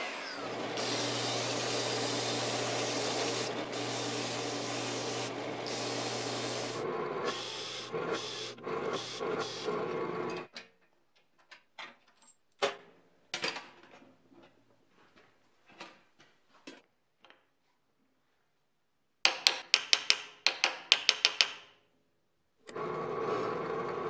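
A benchtop table saw running and cutting a wooden block for about ten seconds, then stopping. After that come scattered light clicks and knocks as the bandsaw's upper frame is unbolted, a quick run of sharp clicks, and near the end a drill press boring into the wood.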